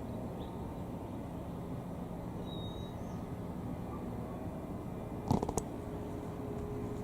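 Distant jet airliner rumble, low and steady, from an Airbus A330-243 with Rolls-Royce Trent 700 engines. A short bird chirp sounds about two and a half seconds in, and a couple of sharp clicks a little after five seconds.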